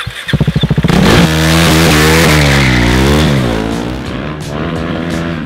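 KTM RC 390 drift bike's single-cylinder engine pulsing unevenly for about a second, then revving hard with its pitch rising and falling, over a long tyre squeal as the bike drifts.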